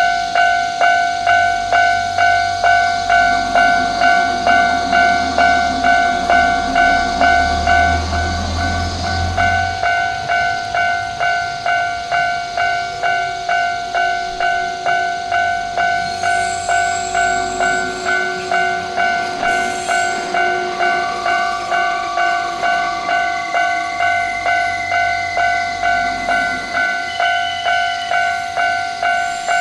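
Japanese railway level-crossing warning bell ringing steadily at about two strikes a second. A train rumbles past during the first ten seconds, louder toward the end of that stretch, then stops abruptly.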